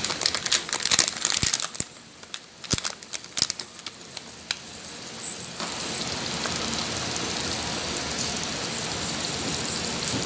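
Glutinous rice mixture sizzling and crackling in the pan: scattered pops and crackles for the first couple of seconds, a quieter spell, then a steady sizzle from about five and a half seconds in.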